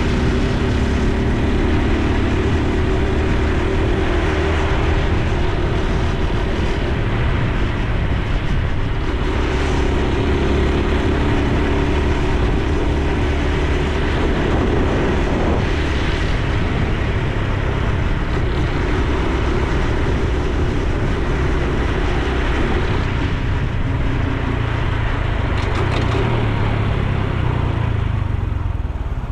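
Honda Super Cub C125's single-cylinder four-stroke engine and exhaust running while riding through town streets. Its pitch rises and falls as the bike speeds up and slows, over a steady rush of wind and road noise.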